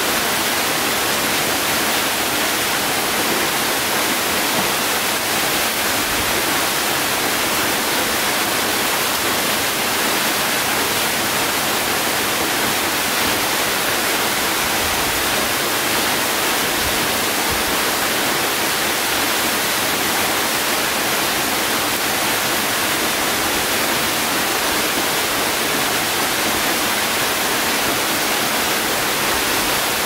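Steady rush of falling water, an even hiss that does not change, starting and stopping abruptly.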